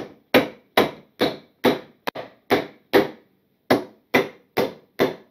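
Hammer driving the nails of a plastic junction box into a wooden stud: a steady run of sharp strikes, a little over two a second.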